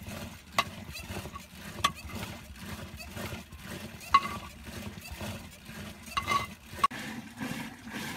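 Wooden churning stick spun back and forth by a rope in a clay pot of sheep's-milk curd, churning it towards butter: rhythmic swishing with sharp clicks as the stick knocks and reverses, the loudest about four seconds in.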